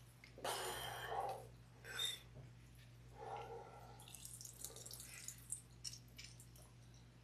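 An orange being squeezed, its juice splashing and dripping into a bowl: a wet squishing burst about half a second in, two shorter ones after, then light dripping and crackling.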